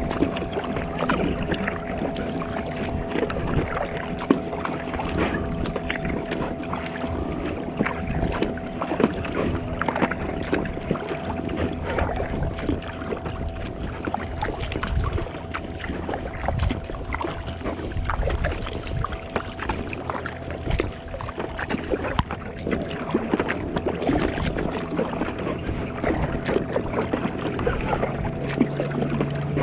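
Water splashing and lapping around an inflatable packraft afloat, with many small irregular knocks and a steady hum underneath.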